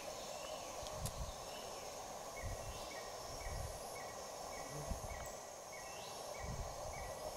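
Outdoor bush ambience: a steady insect drone, with a run of short, evenly spaced chirps, about two a second, starting a couple of seconds in. There are also light, irregular low rumbles from wind on the microphone.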